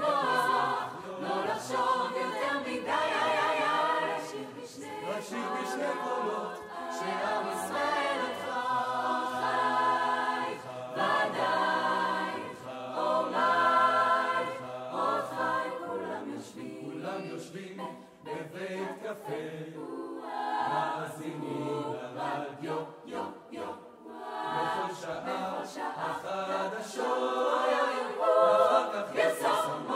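Mixed youth choir of girls' and boys' voices singing in several parts, the phrases swelling and easing.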